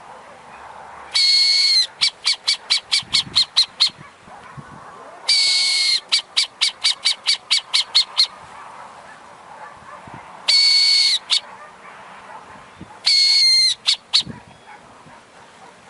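Owl sound effect: a long, steady, high-pitched call, heard four times, each of the first three followed by a quick run of short clipped notes, about five a second.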